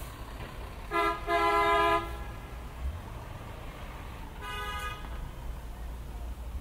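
Vehicle horns honking in street traffic: a short beep about a second in, then a longer blast, and a shorter, fainter honk a few seconds later, over a steady low rumble of city traffic.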